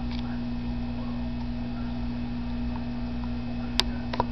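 Steady low electrical hum of running aquarium equipment, with one sharp click near the end and a quieter double click just after it.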